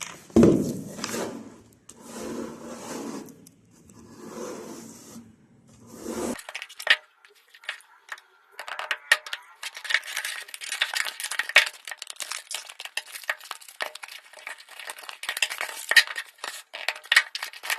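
Three or four broad noisy swells over the first six seconds, then a dense, irregular run of crackles and rustles from about eight seconds on: handling noise.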